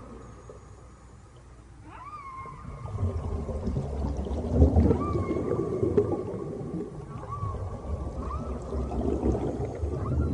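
Long whale-like tonal calls, each swooping up and then holding one pitch, repeating every couple of seconds over a low rumble that swells from about three seconds in.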